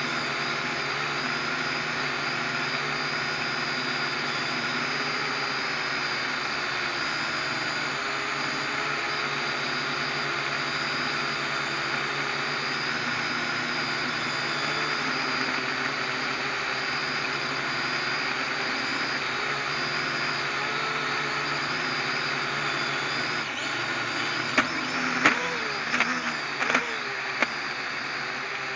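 Quadcopter drone's electric motors and propellers running with a steady whir and whine, as picked up by the drone's own onboard camera, the pitch wavering slightly as it flies. A few sharp knocks near the end.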